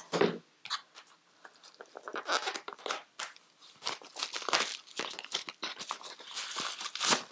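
Plastic wrapping and a cardboard eyeshadow-palette box being handled, crinkling and rustling in a run of irregular crackles.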